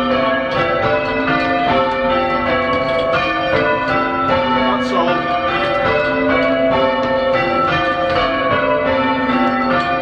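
Change ringing on a ring of five church bells, tenor about 8 cwt in A, rung full-circle by rope: the bells strike one after another in a steady, even rhythm, heard from the ringing room below them.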